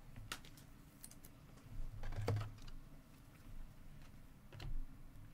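Select basketball cards being handled and slid through a stack, giving a few light clicks and taps of card stock, the strongest about two seconds in.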